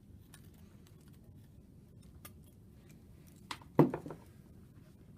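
Light clicks and rattles of small parts being handled, then a sharp clunk with a brief ring about four seconds in, as the ELMA's control board is taken out and set down.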